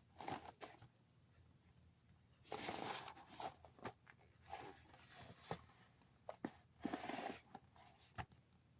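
A dog tearing and chewing at a cardboard cereal box, in irregular bursts of ripping and crinkling with sharp clicks between quieter pauses.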